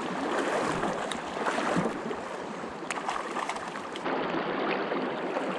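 Steady rush of a shallow, rocky creek flowing past a wader's legs.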